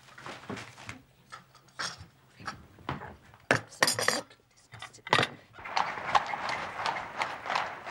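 China plates, cups and cutlery clinking in separate sharp knocks as a breakfast table is cleared. About five and a half seconds in, this gives way to a steady street bustle with the quick, regular clatter of horses' hooves.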